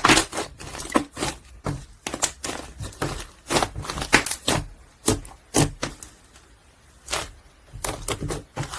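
Foam ball slime (slime packed with small foam beads) being pressed and squished by hand, giving irregular crunchy crackles and pops a few times a second, with a quieter stretch about six seconds in.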